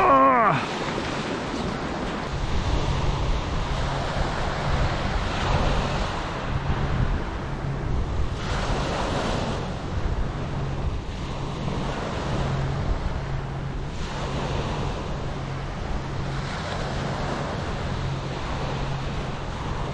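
Small waves breaking and washing up a pebble beach, swelling every few seconds, with wind rumbling on the microphone.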